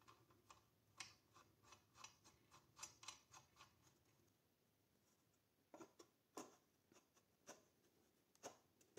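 Faint, irregular light clicks and taps, a quick run of them, a pause of about two seconds, then a few more spaced out.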